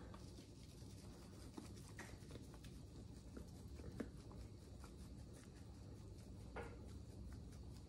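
Very faint patter of grated Parmesan cheese shaken from an open canister onto a casserole, with a few light taps.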